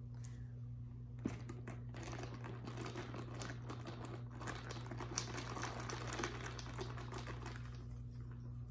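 Ice cubes clinking and rattling in a glass mason-jar mug of iced coffee as it is stirred with a straw: a dense run of small clicks from about two seconds in, easing off near the end. A single knock about a second in.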